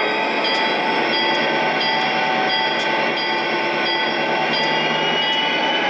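MTH Proto-Sound 3.0 digital diesel sound from an O-scale model locomotive's onboard speaker: an EMD SD40-2 prime mover recording running steadily.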